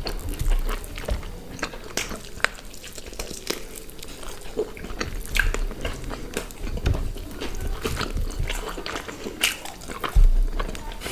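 Close-up mouth sounds of people eating grilled chicken and paratha: biting and chewing, with many small wet clicks and crunches. A louder low thump comes near the end.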